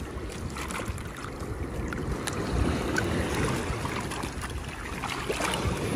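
Shallow seawater splashing and sloshing around a large sea turtle thrashing while hands hold it down, with scattered sharp splashes.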